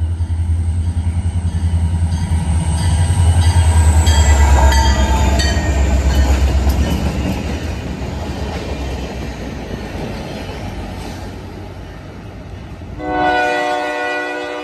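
CSX track-geometry train passing close by: the diesel locomotive's engine rumbles heavily as it goes past, with wheels clicking over rail joints, then the passenger-style cars roll by and the sound fades away. Near the end a loud, held chord of steady tones comes in suddenly.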